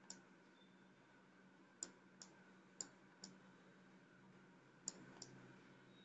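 Faint, sharp clicks over near-silent room tone: seven in all, mostly in pairs about a third of a second apart.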